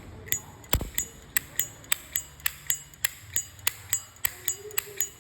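Slim brass Zippo lighter with chrome plating, its lid flicked open and snapped shut again and again: a quick run of sharp metallic clinks with a bright ring, about three or four a second. This is the crisp clink ('âm') that collectors look for.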